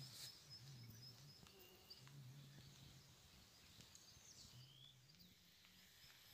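Near silence: faint outdoor ambience with a few short, faint high chirps.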